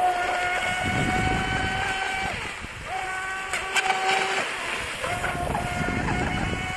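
RC racing boat's motor running near full throttle, a steady high-pitched whine. It drops out about two seconds in and again past four seconds, and comes back each time with a quick rise in pitch as the throttle opens again. Wind and water rushing underneath.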